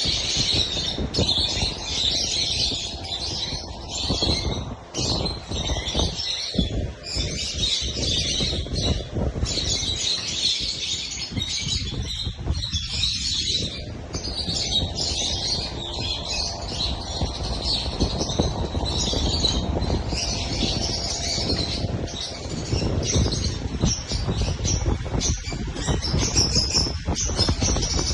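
Many lovebirds chirping and chattering continuously in high, rapid calls, over a steady low rumble.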